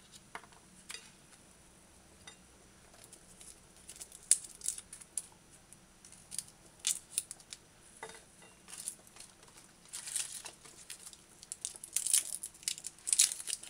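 Garlic cloves being peeled and trimmed with a small knife: dry, papery skins crackling and tearing in short scattered bursts, busier in the second half.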